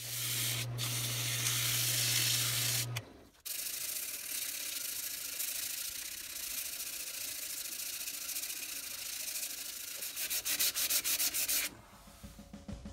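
Sandpaper hissing against a wooden handle spinning on a wood lathe: hand-sanding the turned mallet handle. A low hum sits under it for the first three seconds, and near the end the hiss turns into a quick flutter before it fades.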